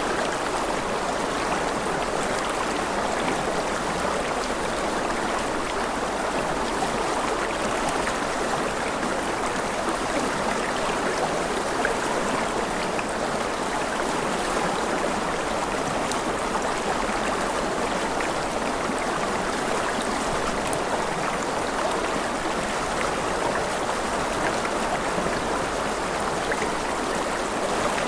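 Flowing water rushing steadily and evenly, with no breaks.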